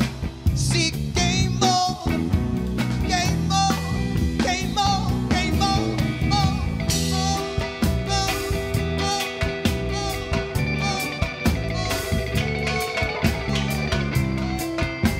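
Live band playing an instrumental passage: electric keyboard lead over electric bass, drum kit and electric guitar.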